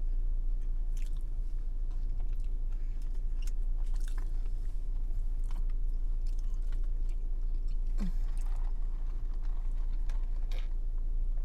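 Close-miked chewing and biting of food, with small wet clicks and crunches, over a steady low hum.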